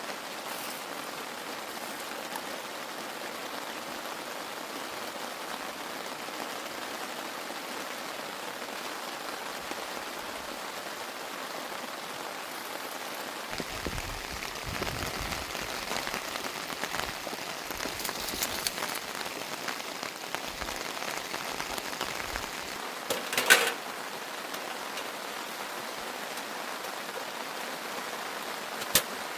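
Steady rain falling, an even hiss of drops. There are some low handling sounds a little past the middle, and one sharp knock about two-thirds of the way through.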